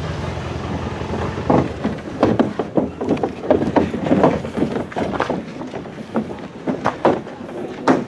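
A vehicle engine idling with a low steady hum. From about a second and a half in, a string of irregular, louder bumps and sounds is heard over it.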